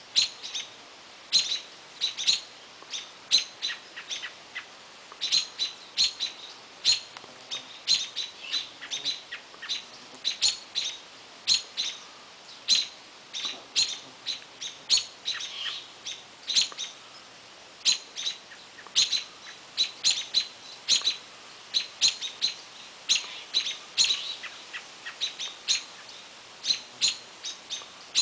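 A small bird giving short, sharp chirps over and over, about two or three a second in uneven runs.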